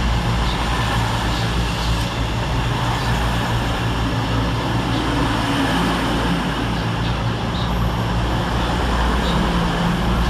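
CrossCountry Voyager diesel-electric multiple units, a Class 221 coupled to a Class 220, running past along the platform. Their underfloor diesel engines give a steady low hum over a constant rush of wheel and rail noise.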